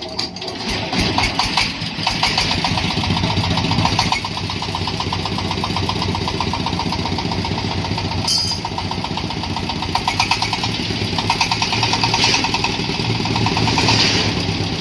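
Engine of a husk-on corn sheller machine started on a test run, picking up over the first couple of seconds and then running steadily with an even rhythmic beat. A brief high-pitched squeak comes about eight seconds in.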